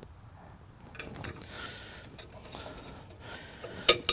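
A few light clicks and knocks of metal parts being handled at a leaf vacuum's impeller housing as a shredder blade assembly is fitted, with one sharper click near the end.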